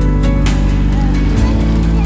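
Instrumental background music with held notes and plucked-string notes.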